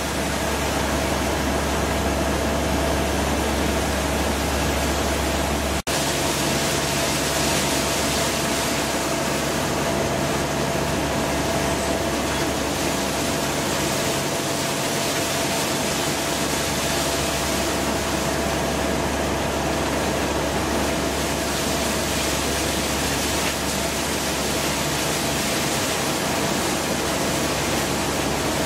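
Steady drone of paper-mill machinery, an electric gear motor's hum with a constant tone. About six seconds in the sound cuts to a broader, hissier rush of water running through a channel under the same machine drone.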